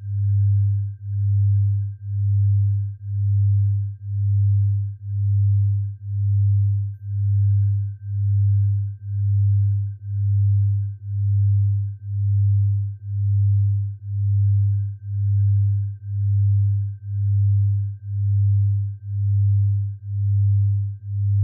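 Synthesized low pure tone, a deep hum near 100 Hz, swelling and fading in even pulses a little more than once a second, with a faint steady high tone held under it: an electronic sound-therapy tone meant for tinnitus relief.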